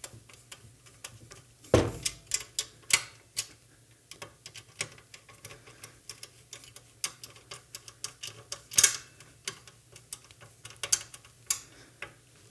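A string of light irregular metal clicks as a handled hex key tightens 10-32 bolts on an aluminium battery mount bracket, with a few louder clanks about 2, 3 and 9 seconds in.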